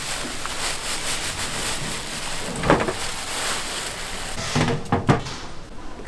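Dried anchovies poured from a plastic bag into a perforated stainless-steel stock basket: a dry rustling rattle with the bag crinkling, louder a little under three seconds in and again around five seconds.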